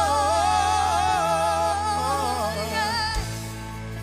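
Gospel choir singing a long held, slightly wavering note over steady bass and keyboard accompaniment; the voices fade out near the end, leaving the accompaniment.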